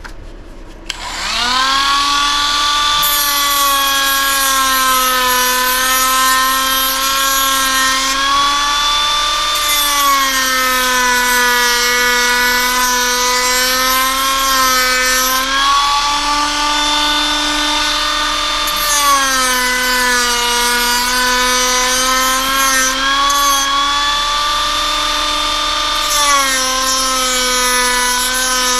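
Rotary tool spinning up about a second in, then running at a steady high whine while its sanding wheel is worked against the cut edge of a carbon-fibre battery mount. The pitch sags and a gritty hiss rises each time the wheel is pressed into the carbon, then the whine recovers when it eases off.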